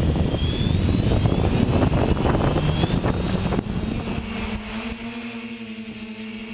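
Quadcopter's four brushless motors and 9-inch propellers spinning up with rough, gusty noise as it lifts off. From about four seconds in they settle into a steady, even hum in flight.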